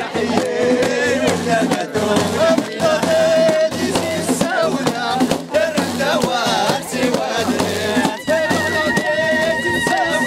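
Men singing together to the beat of hand-struck frame drums (bendir), with hand clapping. A high, wavering held note joins near the end.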